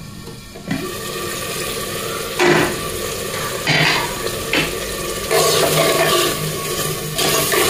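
Aluminium pressure cooker being opened: a steady hiss from the hot pot of black-eyed pea curry, with a few sharp metal clanks of the lid. In the last couple of seconds a spoon scrapes and stirs through the beans in the pot.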